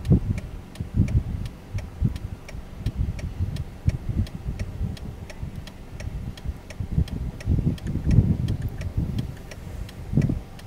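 Wind buffeting the microphone in uneven gusts, with a faint, regular ticking of about three ticks a second underneath.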